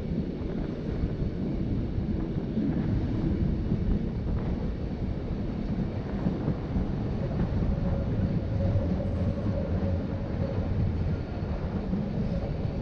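RhB ABe 8/12 'Allegra' electric multiple unit running along the track with a steady low rumble. A faint steady tone joins it a little past halfway and fades near the end.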